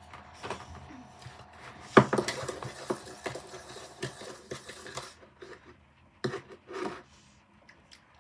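A lollipop knocking and rubbing against a plastic bowl of candy powder, with one sharp knock about two seconds in and a few seconds of clicking and scraping after it. Two short licking and sucking sounds come near the end.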